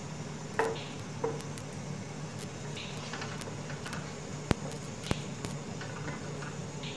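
Wooden spatula stirring a watery curry in a metal pot, knocking against the pot four times, sharpest about four and a half seconds in, over a steady low hum.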